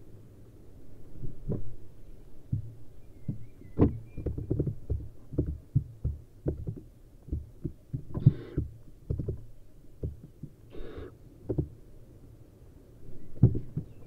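Barn owl nestlings scrambling and pouncing in a wooden nest box: a run of dull thumps and scuffs from their feet landing on the pellet-strewn floor. Twice, about eight and eleven seconds in, a nestling gives a short hiss.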